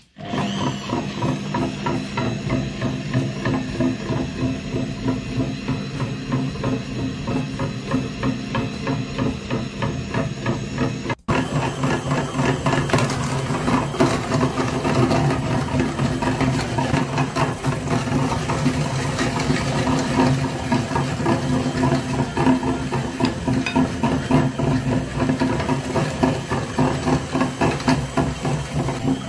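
Small motor-driven meat grinder starting up and running steadily, its auger turning with a fast mechanical rattle and hum. The sound drops out for a moment about eleven seconds in, then continues.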